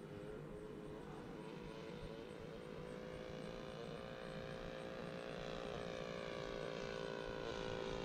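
Engine of a radio-controlled Nieuport 28 scale model airplane running steadily in flight, getting louder as the plane comes closer. It stays at one setting because throttle control has been lost.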